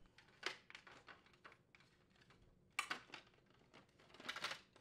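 Faint clicks and rattles of plastic parts as a refrigerator's crisper cover is bent and the plastic center crisper drawer slide rail support is worked loose from it, with a louder cluster of clicks about three seconds in and another near the end.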